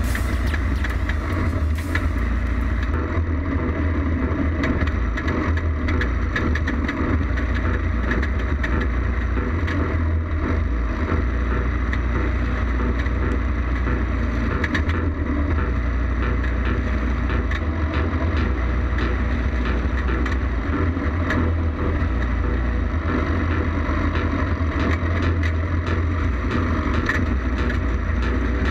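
Champ kart's engine running steadily at racing speed, heard from an onboard camera on the roll cage, with many small rattles and knocks from the chassis.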